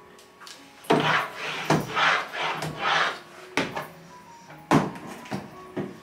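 Household handling noises: a run of short, noisy strokes in the first half, then four sharp knocks in the second half, over soft background music.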